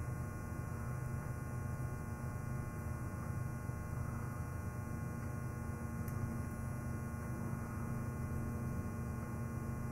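Steady low electrical mains hum under quiet room tone.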